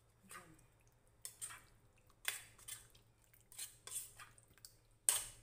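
A spoon stirring wet marinated meat pieces in a stainless steel bowl: irregular scrapes and clinks against the bowl with squelching of the meat, the loudest knock near the end.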